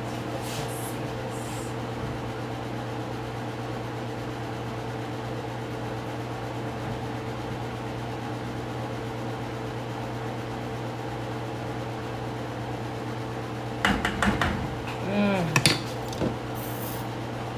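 A kitchen appliance hums steadily with an even electrical drone. About fourteen seconds in come a few sharp clinks and scrapes of utensils on dishes while food is served onto a plate.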